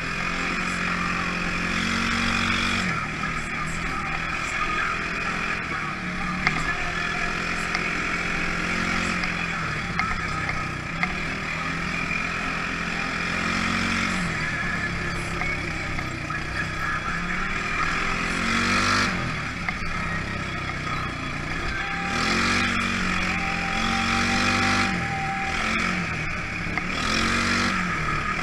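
Polaris ACE 570's single-cylinder engine running under load on the move, its revs rising and falling over and over with the throttle.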